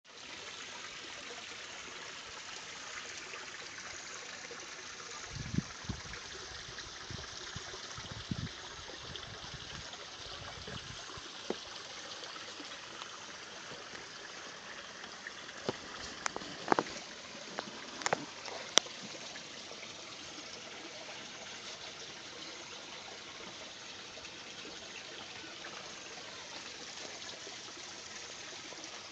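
A steady trickling of running water, with a few soft thumps and sharp clicks partway through.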